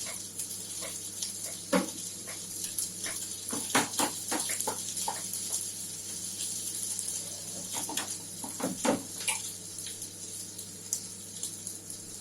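Kitchen clatter: scattered knocks and clinks of utensils and dishes, thickest around the middle and again about nine seconds in, over a steady hiss.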